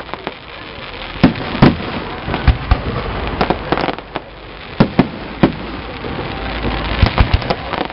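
Fireworks display: aerial shells bursting in an irregular series of loud bangs, about a dozen over eight seconds.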